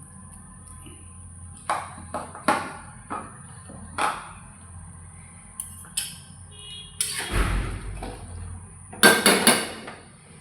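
Kitchen utensils and cookware knocking and clinking: a string of separate knocks, a longer scrape about seven seconds in, then a quick run of sharp clinks near the end.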